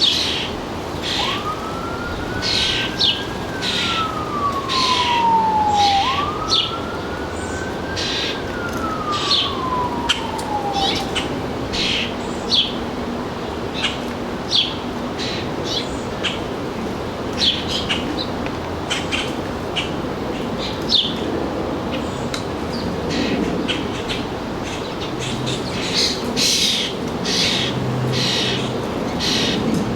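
An emergency vehicle siren wails twice in the first third, each wail rising quickly and falling slowly, while small birds chirp in short, repeated notes throughout.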